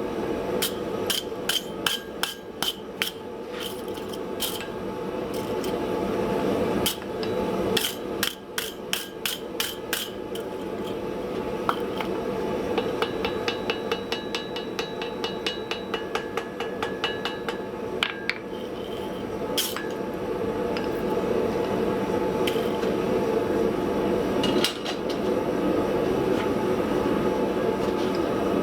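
Hammer blows on steel at the anvil during forging: runs of quick strikes, a few a second, in the first ten seconds, then sparser blows, some of them ringing. Under them runs a steady rushing noise that grows louder.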